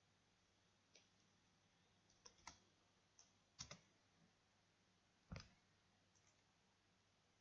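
Faint, scattered clicks of a computer mouse and keyboard, about eight in all, as a command and a length are entered; the loudest comes about five seconds in.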